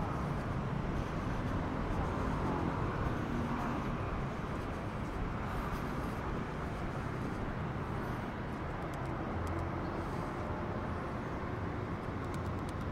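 Outdoor city street ambience: a steady noise of vehicle traffic.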